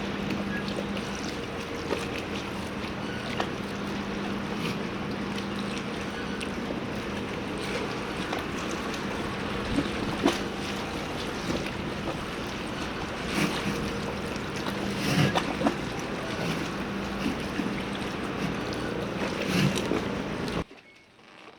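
Harbour ambience: a steady low engine hum, most likely a boat's, over a wash of water and wind noise, with scattered knocks and clicks. It cuts off suddenly near the end.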